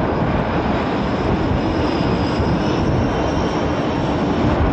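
Military jet aircraft engines running steadily: a dense, even rush of noise with a high whine on top that wavers slightly.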